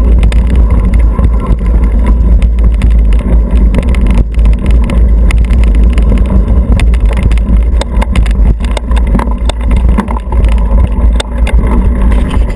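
Mountain bike ridden fast over rough dirt singletrack, heard through a handlebar-mounted camera: a constant heavy low rumble of mount vibration and wind, with frequent rattles and knocks as the tyres hit roots and stones.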